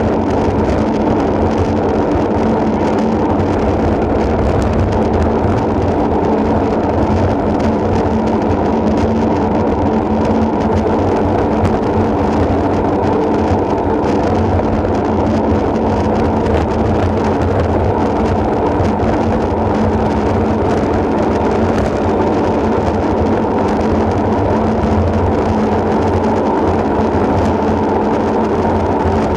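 Steady rush of wind over the microphone of a bike-mounted camera, mixed with the rolling hum of road-bike tyres on asphalt, at a riding pace that holds even throughout.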